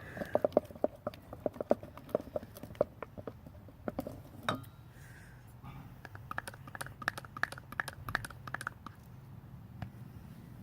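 Runs of small clicks and taps, with one sharper knock about halfway, while more blue Dawn dish soap is pumped into thick white school glue in a bowl and worked in.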